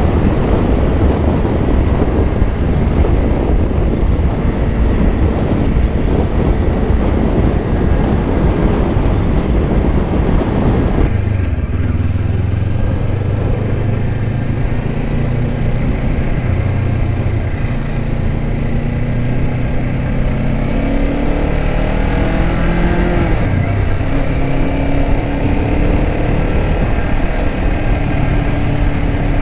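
Kawasaki Ninja 500 parallel-twin motorcycle riding, at first buried under steady wind rush on the microphone. About eleven seconds in the wind drops away and the engine note comes through, climbing in pitch through the gears with a sudden drop at a shift near the end.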